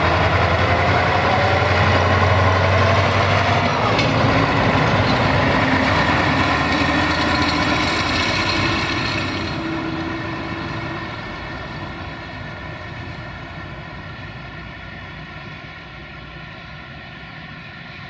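UAM215 rail maintenance vehicle with a crane passing close by under its own engine. The engine note rises over the first few seconds and then holds steady. From about halfway through it fades gradually as the vehicle draws away.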